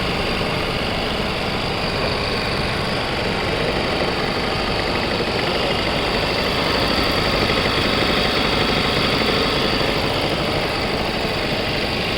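Zoje ZJ-5770A-3020 industrial pattern sewing machine running, a steady, fast mechanical rattle of its stitching drive.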